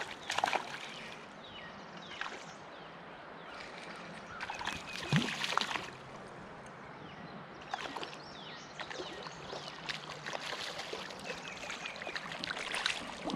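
Shallow creek water splashing and sloshing in irregular bursts, the strongest about five seconds in and a busier run through the second half.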